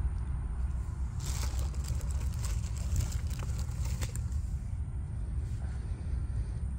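Paper seed packets rustling and being handled in a plastic box, in a few short crackles, over a steady low rumble.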